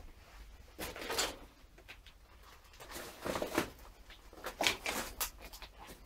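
Footsteps crunching and scraping over broken glass and rubble, a few irregular steps in an echoey small concrete tunnel.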